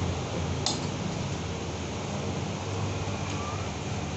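Steady hiss of an electric fan running, with a single sharp click under a second in.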